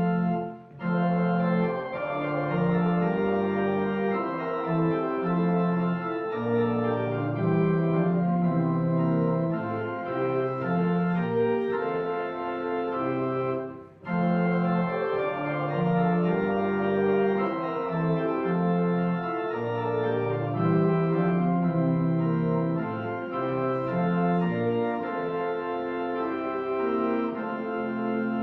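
Organ playing a hymn in steady held chords that change in blocks, with short breaks between phrases about a second in and about halfway through.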